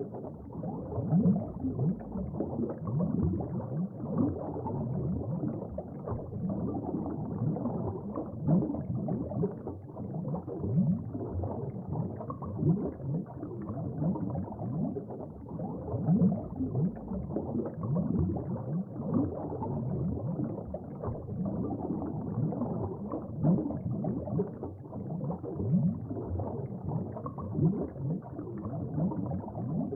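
Water from an aquaterrarium's small waterfall and stream, bubbling and gurgling steadily with many quick little gurgles and no bright splashy hiss.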